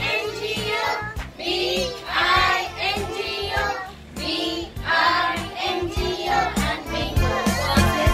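A children's song: young voices singing a melody over music.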